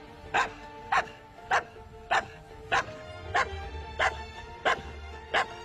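A dog barking repeatedly at an even pace, about nine barks, over background music with held notes and a low bass that comes in about halfway.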